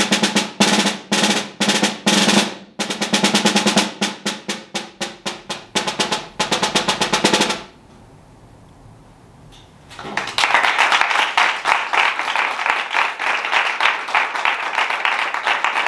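Concert snare drum played with sticks: quick strokes and rolls with the snares buzzing, ending about seven and a half seconds in. About two seconds later, a small group applauds.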